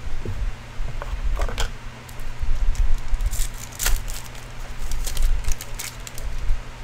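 Foil wrapper of an Upper Deck hockey card pack crinkling and tearing as it is opened, in short clusters of sharp crackles about a second and a half in, again around three to four seconds, and near the end. A steady low hum runs underneath.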